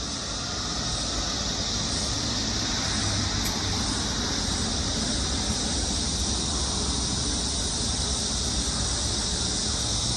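Steady, high-pitched shrill hiss that holds unbroken, over a low background rumble.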